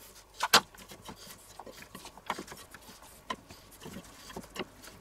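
Kitchen clatter of light knocks and clicks as carrot sticks are laid into a clay roasting pot and a spatula is put down on a wooden cutting board. The loudest is a quick double knock about half a second in, with a few softer ones later.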